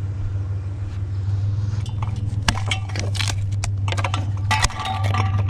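Metal parts of a discarded ceiling fan clinking and rattling in a quick run of sharp knocks as it is picked up and handled, starting about halfway through. Under it runs the steady low hum of an idling truck engine.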